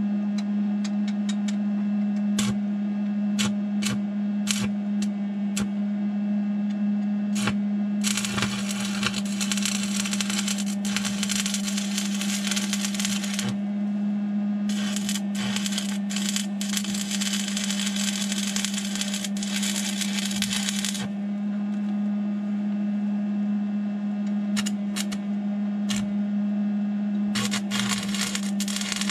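Arc welding on a steel PTO shaft: a few short crackling arc strikes in the first seconds, then two steady crackling runs of about five and six seconds, and a short burst near the end. A steady low hum sits under it all.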